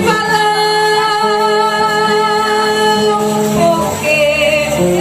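Live worship band playing a gospel song with a woman singing over guitar and other instruments, held notes and a wavering voice line.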